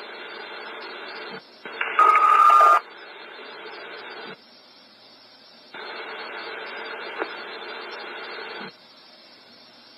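Police scanner radio between transmissions: hissing static as the channel keys up and drops several times, with a short, loud burst of noise and a steady beep about two seconds in.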